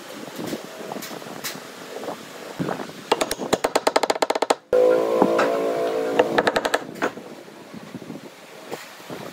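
Power tool working wood: a quick run of sharp clicks, then a steady whine for about two seconds, then another run of clicks.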